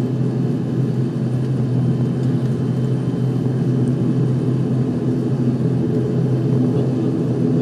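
Cabin drone of an ATR 72-500's Pratt & Whitney PW127 turboprop engines and propellers, a steady low hum.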